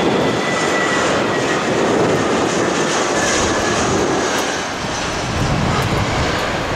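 Jet engines of a Batik Air Airbus A320 airliner on short final, flaring just above the runway to land: a loud, steady jet rumble with a thin whine over it early on, easing slightly about five seconds in.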